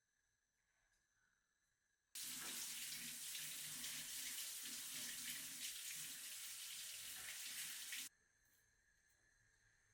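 Kitchen tap turned on, water running steadily into the sink for about six seconds, then shut off abruptly.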